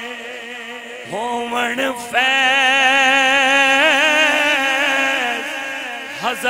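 A man singing a Punjabi devotional verse into a microphone, drawing each line out into long held notes with vibrato. The voice dips about a second in, and a new long line begins about two seconds in.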